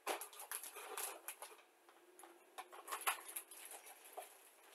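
Faint rustling and crackling of paper sheets being handled: a quick run of small crackles at first, then only scattered ones.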